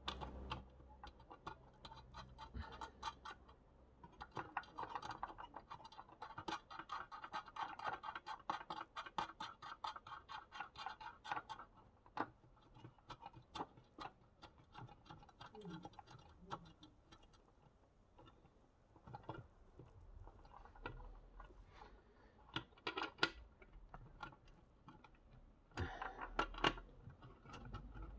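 Scratching and small metallic clicks of a thin steel bicycle cable and its fittings being handled and fastened by hand at an outboard motor's steering plate. A dense run of quick clicking lasts about seven seconds, starting some five seconds in; the rest is scattered clicks, with another short cluster near the end.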